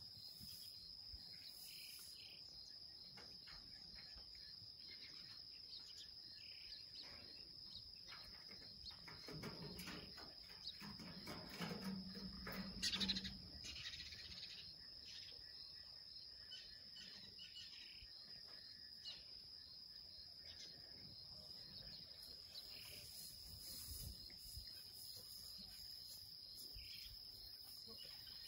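Insects in the grass trilling steadily with a constant high-pitched drone, and a brief louder low sound about halfway through.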